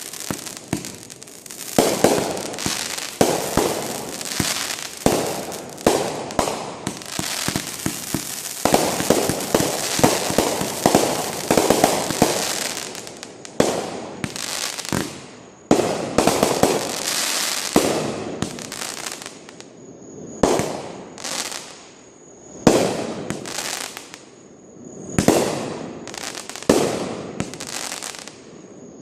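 Fireworks going off in quick succession: sharp bangs about every one to two seconds, each trailing into crackle.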